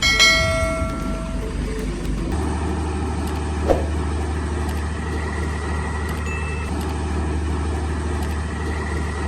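A heavy truck's diesel engine runs steadily as a strong low drone, starting about two seconds in. A held multi-pitched tone sounds for the first second and a half.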